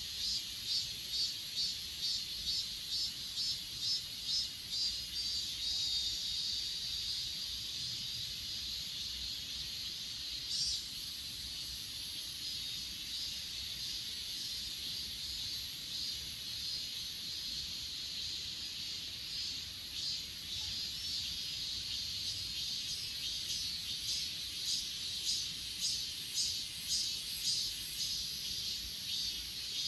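Grass insects chirring: a steady high-pitched trill with a chorus of crickets chirping over it at about three chirps a second, the chirping fading in the middle and returning strongly near the end.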